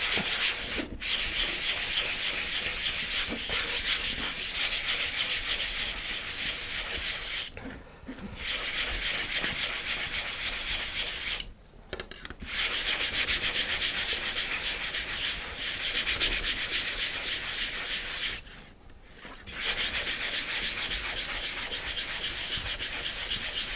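Sandpaper of about 220 grit on a hand sanding block, rubbed in rapid back-and-forth strokes over a thin plywood sheet. The sanding comes in stretches, broken by three short pauses: about a third of the way in, halfway, and three quarters of the way in.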